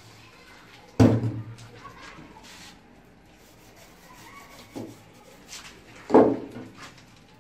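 Two sharp knocks on a granite countertop, about a second in and again near the end, each with a short low ring. Light scraping and tapping between them come from working a granite edge strip and its mortar bed.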